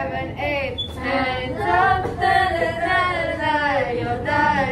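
Young women's voices singing a melody in long, sliding sung phrases, with little or no instrumental backing.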